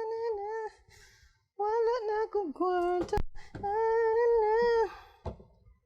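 A high voice singing held, slightly wavering notes in three short phrases, with a couple of sharp clicks about three seconds in.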